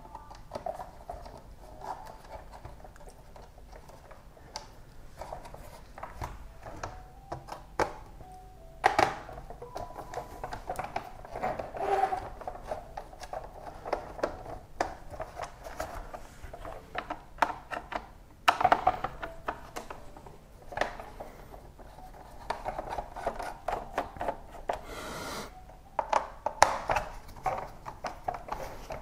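Small T10 Torx screws being worked out of a plastic instrument cluster housing by hand: irregular clicks, ticks and scrapes of the driver bit and housing, with a few louder knocks.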